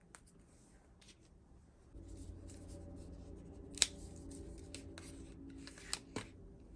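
Album packaging being handled during an unboxing: scattered sharp clicks and crinkles of plastic and cardboard, the loudest nearly four seconds in and two more close together near the end. A low steady hum comes in about two seconds in.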